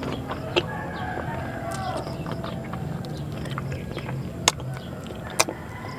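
A person eating rice and fish with bare hands: chewing and mouth sounds, with three sharp clicks, one shortly after the start and two near the end, over a steady low hum.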